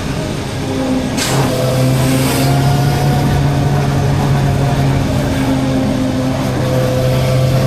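Suzuki GSR 600's inline-four engine running at steady revs under way, over constant wind rush. Two brief whooshes cut through, about a second in and again a second later.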